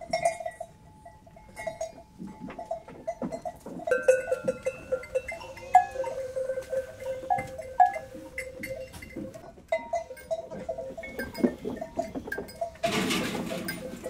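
Metal bell hanging from a goat's neck clanking and ringing over and over as the goat moves about, and a goat bleats near the end.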